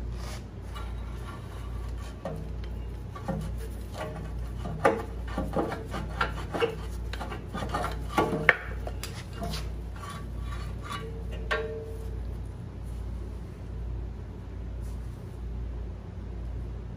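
A rusty wet cylinder sleeve from a McCormick-Deering Type M engine being slid out of the engine block by hand. It scrapes and clinks, metal on metal against the bore and the puller studs, with a few sharper ringing knocks. The handling sounds stop about 12 seconds in, leaving a steady low hum.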